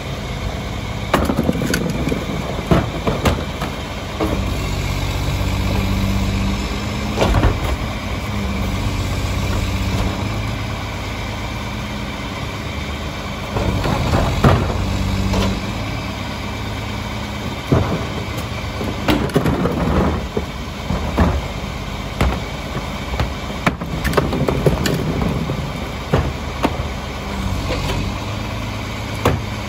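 A Mack MR rear-loader garbage truck's diesel engine idling steadily, its note stepping up for a few seconds twice. Over it come repeated knocks and clatter as plastic wheeled trash carts are tipped and banged against the Heil Formula 4000 packer's rear hopper.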